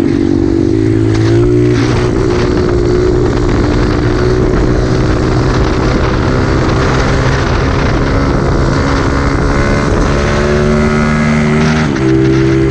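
Small single-cylinder engine of a mini trail bike running under way, rising in pitch about a second in and dropping near the end. Heavy wind noise on the microphone runs over it.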